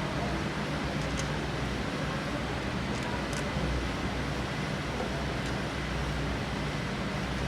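Steady background rumble and hiss, like traffic noise or workshop ambience, with a few faint light clicks.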